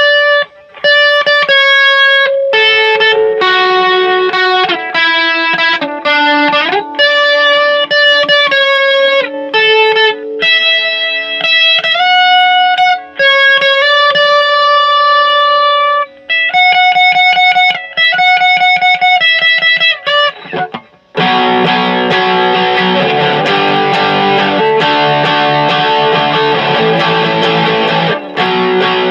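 Electric guitar played through a Joyo DC30 amplifier: a clean single-note melody with slides between notes, then, about 21 seconds in, a switch to a thick distorted tone playing chords.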